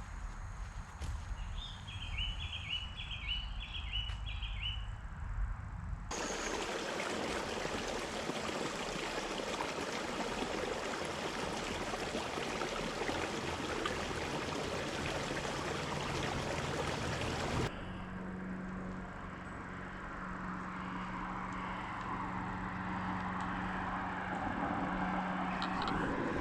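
Outdoor ambience in three cut segments: a low rumble with a short run of high bird-like chirps, then a steady even hiss that starts and stops abruptly, then a steady low hum with background noise.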